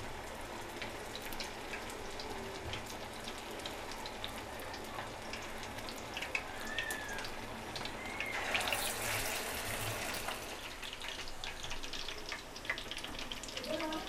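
Hot oil bubbling and crackling in a frying pan. About eight and a half seconds in, a chapli kabab patty is lowered into the oil and the sizzle surges louder for about two seconds, then settles into steady deep-frying crackle.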